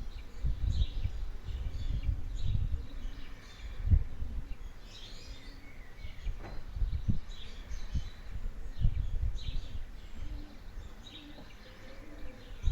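Small birds chirping repeatedly in short calls, over loud, irregular low-pitched buffeting on the microphone.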